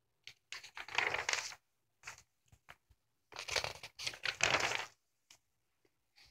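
Pages of a 1961 LOOK magazine being turned by hand: two bursts of paper rustling, one about a second in and a longer one past the middle, with a few small crinkles and flicks between and after.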